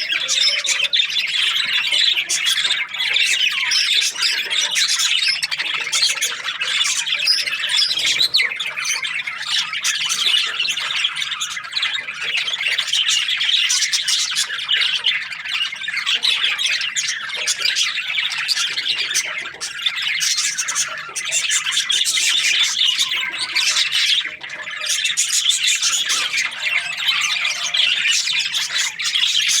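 A flock of budgerigars chirping and squawking together in a continuous, dense chatter.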